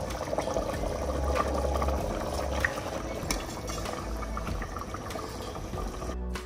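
Potato-and-pea curry bubbling at a boil in a pot on a gas stove, a steady crackling simmer, while a metal ladle stirs it, with a few light clicks of the ladle against the pot. The sound cuts off just before the end.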